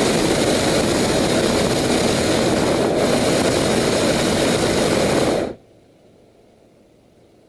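Hot air balloon's propane burner firing overhead: a loud, steady rushing blast that dips for an instant about three seconds in and cuts off sharply when the valve closes, about two-thirds of the way through.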